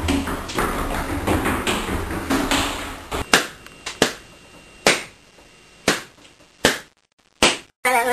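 Rumbling, shuffling handling noise, then a series of sharp pops about once a second: balloons being burst by hand.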